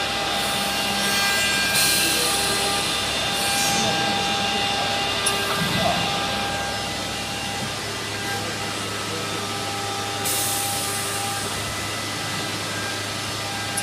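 CNC wood router running, with a steady machine whine and two stretches of louder, hissing cutter noise as the bit works the wood: one about two seconds in lasting a few seconds, and a shorter one near ten seconds.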